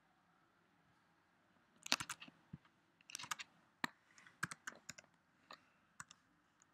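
Typing on a computer keyboard: after about two seconds of quiet, irregular runs of quick key clicks.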